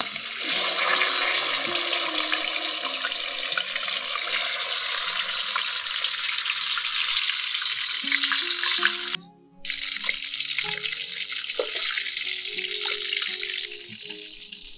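Fish sizzling hard in hot oil in a steel wok as they go in and fry. The sizzle breaks off for a moment about nine seconds in, then comes back, softer near the end.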